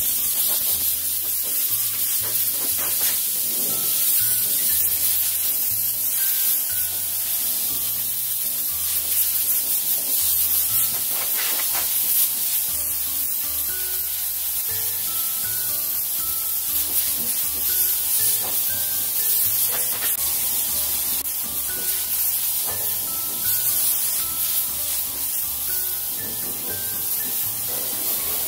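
Air gun blowing a steady hiss of compressed air drawn from the tanks of a 1 hp aluminium low-noise compressor, run without a break to drain the stored air.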